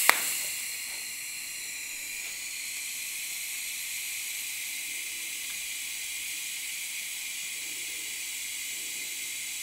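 TIG welding arc burning steadily with an even hiss, after a sharp crack right at the start as it strikes.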